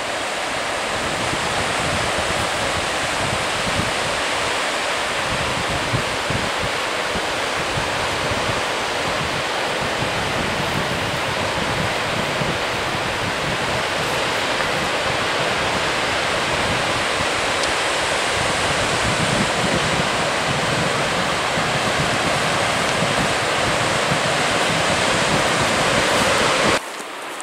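Sea surf washing onto a rocky shore below the cliffs, a steady rush of noise, with wind gusting on the microphone underneath; it drops off suddenly near the end.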